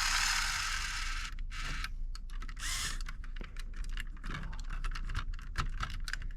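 LEGO Technic gear train of a home-built RC car running under its motor: a steady whirr for about the first second, then rapid, irregular clicking of plastic gears.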